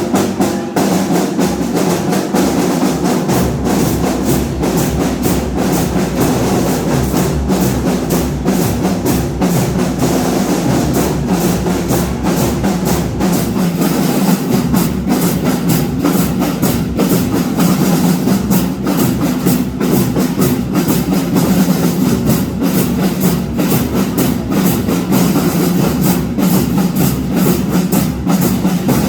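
Marching band playing, with snare and bass drums beating a dense, driving rhythm over sustained lower instrument tones.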